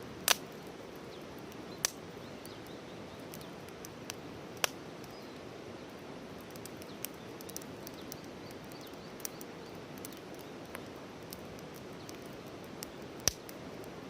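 Wood campfire burning: irregular sharp crackles and pops over a steady low rush, several pops much louder than the rest, including one near the start and one near the end.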